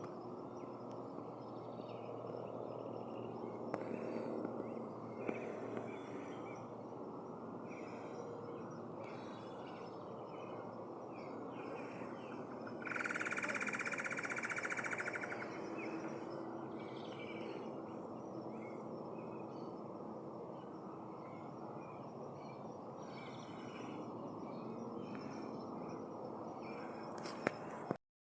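Forest ambience: a steady low rushing background with many short bird calls throughout. About thirteen seconds in comes a loud, rapid pulsing trill from an animal, lasting about two and a half seconds.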